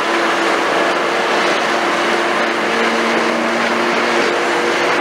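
Liebherr R960 demolition excavator's 250 kW diesel engine running steadily under load while the arm and bucket move, with a few steady humming tones over the engine noise.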